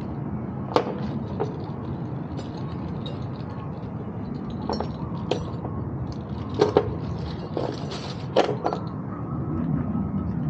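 Scattered sharp clicks and knocks of tools and bike parts being handled during a headlight installation, over a steady low background rumble.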